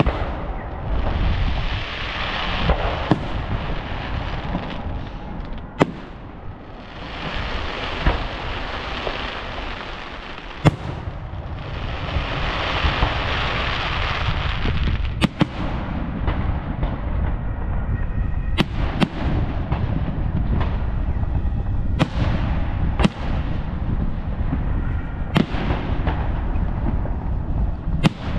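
Fireworks display: aerial shells bursting in the sky, about a dozen sharp bangs at irregular intervals, with stretches of rushing, hissing noise between them.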